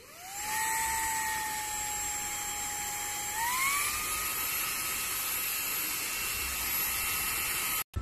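Xiaomi Mijia handheld cordless vacuum cleaner switched on: its motor spins up within half a second to a steady high whine over a rush of air. About three seconds in, the pitch steps up as it goes to its stronger suction setting. It cuts off abruptly near the end.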